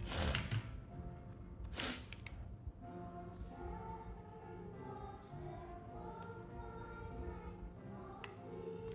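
Background music with held, choir-like sung notes. Two short hissing bursts come in the first two seconds.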